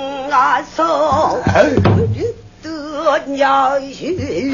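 Pansori singing: one voice holding long notes with a wide, slowly wavering vibrato, with short breaks between phrases.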